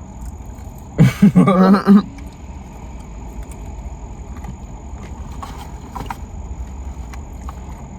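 Steady low background rumble, with a brief loud stretch of a man's voice about a second in.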